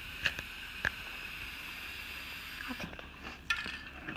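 Aerosol spray paint can hissing steadily as paint is sprayed onto water, stopping about two-thirds of the way through. There are two light clicks near the start and a few small knocks near the end.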